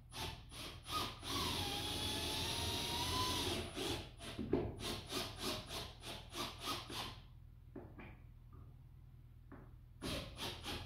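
Rhythmic scraping or rubbing strokes, about three a second, broken by a steady scraping stretch of about two seconds with a faint wavering tone in it. The strokes stop for a few seconds and resume near the end.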